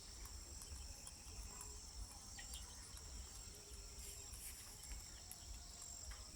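Faint, steady high-pitched chirring of insects, crickets by the sound of it, with a few faint scattered ticks.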